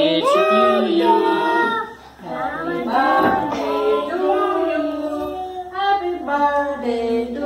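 A group of children and women singing a birthday song together, with a brief break about two seconds in.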